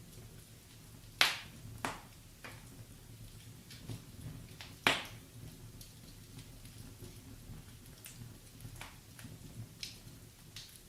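Wood fire in a fireplace crackling: two loud sharp pops, about a second in and near the middle, with smaller snaps scattered between, over a low steady rumble.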